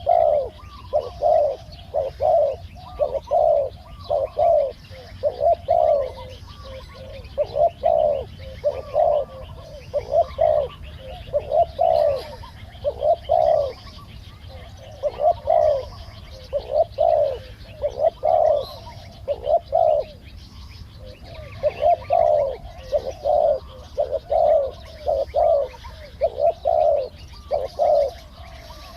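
Spotted doves cooing over and over, phrase after phrase in short groups, the deep calls of a decoy bird and a wild bird being lured in. Small birds chirp faintly in the background.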